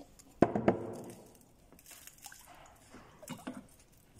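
Kitchen work at a stainless steel pot: two sharp knocks about half a second in, then faint wet sounds and a few small clicks as a utensil is worked in the pot.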